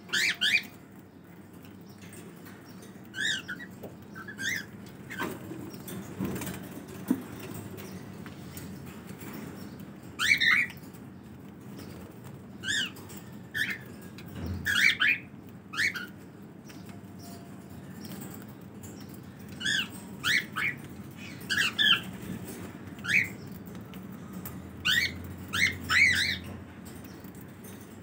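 A flock of cockatiels calling in short chirps and squawks, one or two at a time every few seconds, with a run of calls close together near the end.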